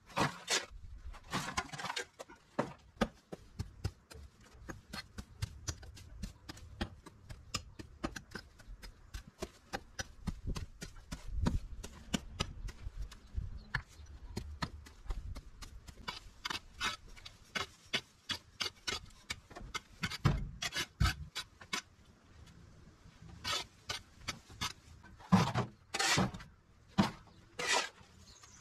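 Weeds being pulled by hand and soil dug and scraped with a shovel: a dense run of short rustles and scrapes, with a few louder shovel scrapes near the end.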